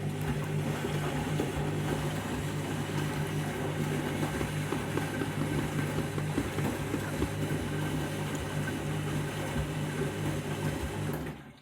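Candy Grand'O Vita washing machine running on its rinse: a steady low hum under an uneven churning noise, cutting off suddenly at the end.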